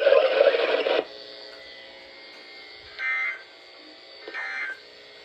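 Weather radio broadcast carrying the Emergency Alert System end-of-message signal: short, identical bursts of SAME digital data, two of them about a second and a half apart in the latter half, over a faint steady hum. They follow a loud hiss of noise that cuts off about a second in.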